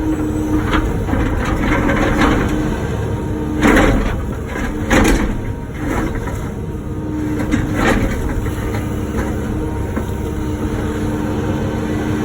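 Wacker Neuson ET145 excavator's diesel engine running steadily under working load, with three loud hits about four, five and eight seconds in as the bucket works the blacktop.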